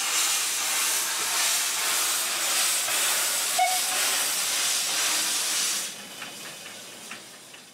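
Narrow-gauge steam locomotive blowing off steam from its open cylinder drain cocks as it moves off, a loud steady hiss. The hiss drops suddenly about six seconds in and then fades away.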